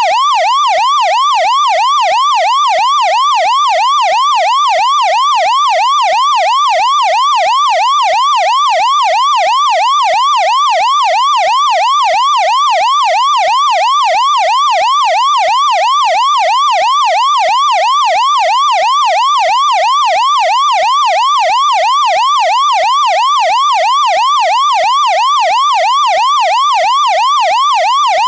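Taiwanese fire engine's electronic siren sounding continuously in a fast yelp, its pitch sweeping up and down in an even, unbroken repeat.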